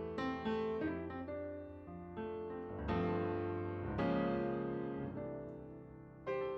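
Slow piano music: notes and chords struck one after another and left to ring and fade.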